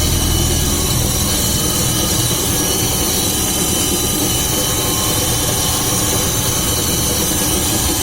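Rear axle of a VAZ 2101–2107 Lada turning with the wheels off the ground and the engine driving them: a steady hum and rumble from a failing rear axle shaft bearing, its cage broken apart.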